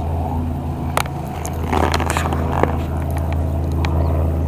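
A steady low machine hum, like a running motor, with a sharp knock about a second in, a short scuffing noise around two seconds in and another knock soon after.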